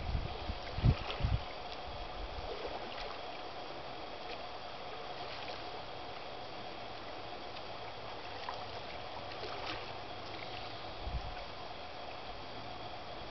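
Double-bladed paddle dipping into still water, heard as faint scattered splashes over a steady hiss. A few low thumps come in the first second or so and once near the end.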